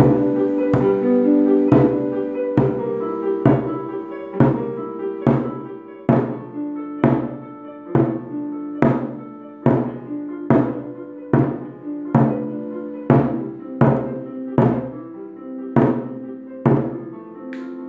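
Music with sustained pitched notes, marked by a sharp click or knock on every beat at a steady pace of a little more than one per second.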